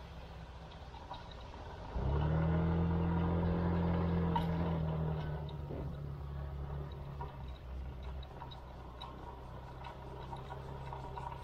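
Motorcycle engine running low, then opening up suddenly about two seconds in. It holds a strong steady note for about three seconds, then eases back to a quieter steady run.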